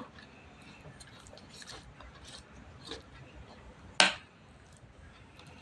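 Faint soft squelching of thick gram-flour batter being spooned and spread onto a taro leaf on a plate, with one sharp click about four seconds in.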